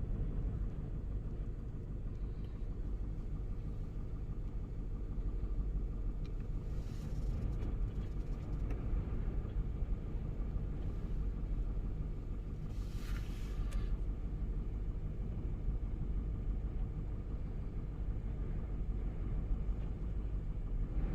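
Strong gusty wind buffeting the microphone: a steady low noise, with brief hissing rushes about seven and thirteen seconds in.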